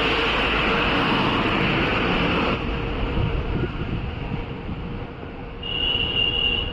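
Ajmer–Sealdah Special passenger train running over a steel truss bridge: a loud, steady rumble that drops about two and a half seconds in and then fades, with a high, steady squeal near the end.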